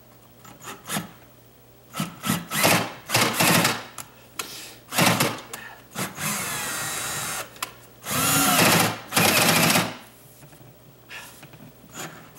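Cordless drill on its low speed setting, turning a long flexible bit (flexi bit) down inside a wall, run in short trigger bursts and then two longer runs of a couple of seconds, the motor's pitch sagging and picking up as the bit bites.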